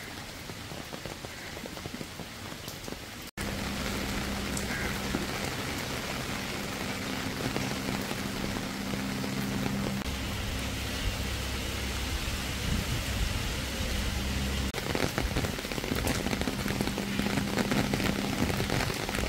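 Rain falling, a steady hiss with scattered drop patter, jumping louder a few seconds in. A steady low hum runs beneath it for much of the time.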